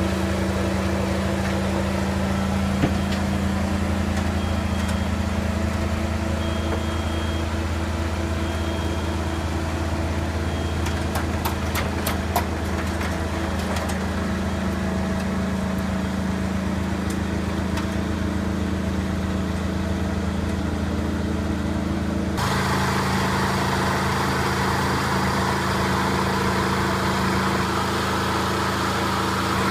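An engine running steadily at an even speed. About two-thirds of the way through, a hissing, higher-pitched noise comes in suddenly on top of it and carries on.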